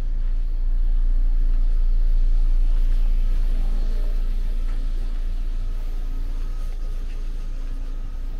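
A car driving past on a city street: its engine and tyre noise rise to a peak about two seconds in, then slowly fade.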